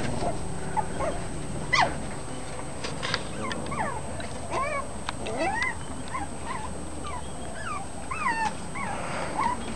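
Bichon frise–poodle cross puppies whimpering and yipping: a string of short, squeaky calls, each rising and falling in pitch.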